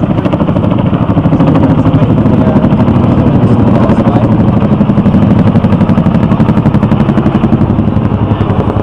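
Sightseeing river boat's engine running steadily under way, with a fast, even throb.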